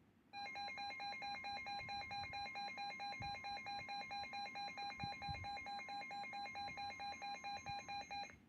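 Emergency alert attention tone: a shrill electronic alarm of a few steady pitches with a rapid, even pulsing. It starts suddenly, holds for about eight seconds and cuts off abruptly near the end, signalling that a weather warning broadcast follows.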